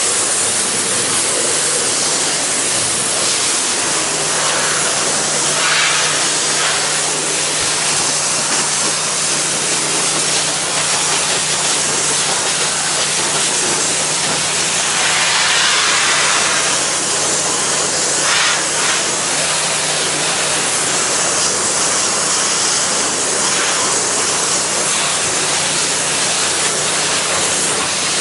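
Pressure washer spraying water at low pressure onto painted deck boards: a steady hiss of the water jet over a steady low hum, swelling briefly a few times.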